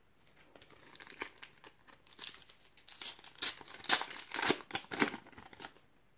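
Panini Adrenalyn XL booster pack's foil wrapper being torn open and crinkled by hand: a run of irregular crackles and rips, loudest about three to five seconds in.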